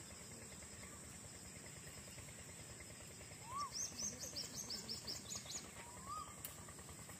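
Faint outdoor ambience with a small bird singing a quick run of about nine high chirps midway, plus a couple of short rising calls, over a steady faint high hiss.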